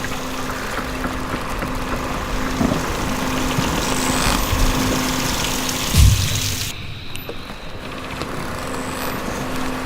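Water streaming and splashing over a steady motor hum, as a ship lift hoists a yacht out of the water. A heavy thump comes about six seconds in, and the sound turns abruptly duller just after.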